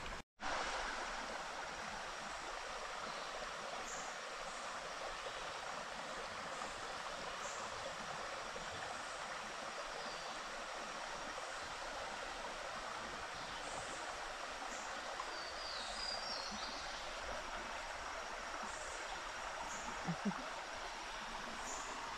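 Steady rush of a flowing stream, with a few faint high bird chirps about two-thirds of the way through.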